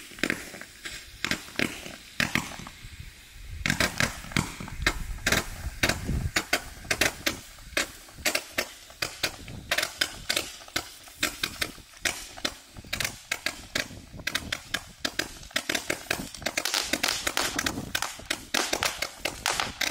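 168-shot mini gatling gun firework cake firing a rapid string of sharp shots, several a second, coming thicker near the end.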